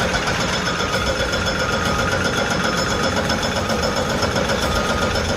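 Heavy machine engine running steadily, with a steady high whine over the engine noise.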